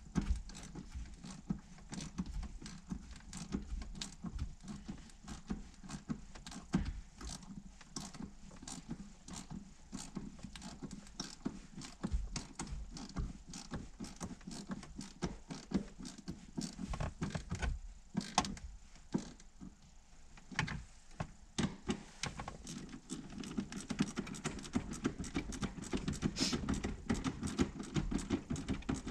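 Irregular small clicks, taps and rattles of hand tools and trim parts being handled at a car's center console, with a scrape now and then.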